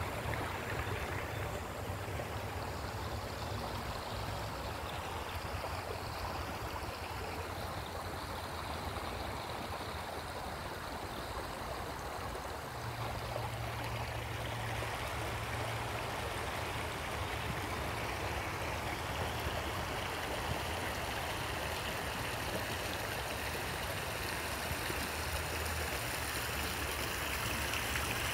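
Shallow rocky stream running over stones: a steady wash of flowing water.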